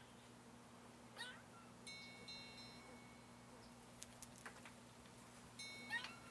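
Faint, cat-like mewing calls from an animal, a short call about a second in and another near the end, with a held, whistle-like high tone twice in between.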